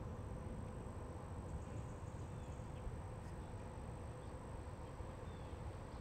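Quiet outdoor ambience: a steady low rumble with a few faint, short high chirps of insects or birds.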